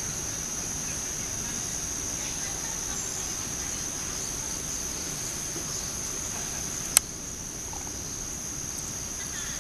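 Insects droning steadily at one high pitch in the trees, with a single sharp click about seven seconds in.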